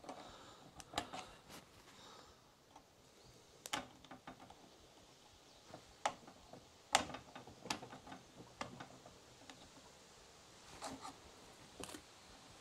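Faint, irregular clicks and scrapes of a metal pick working inside the primer bulb socket of a Tecumseh small engine, trying to hook the retaining clip of the old primer bulb.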